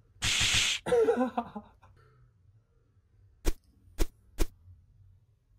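A short burst of hiss, a brief voice, then three sharp clicks about half a second apart.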